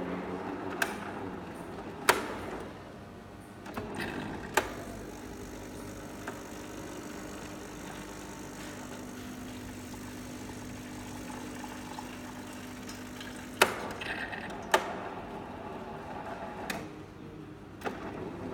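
JAVA automatic coffee machine running its cleaning cycle: a steady low hum for about nine seconds in the middle, which ends with a sharp click, and several other sharp clicks spread through the cycle.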